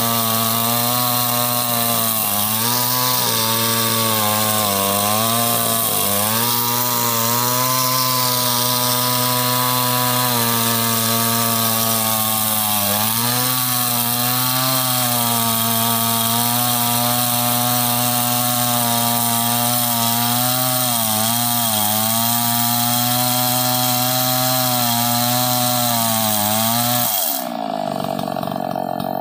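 Stihl MS381 two-stroke chainsaw running at full throttle while ripping a large log lengthwise, its engine speed sagging now and then as the bar loads up in the cut. Near the end the revs drop away sharply.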